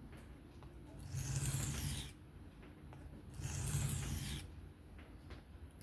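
Knife blade drawn across an Atoma 400 diamond sharpening plate in freehand sharpening: two gritty strokes about a second long each, a little over two seconds apart.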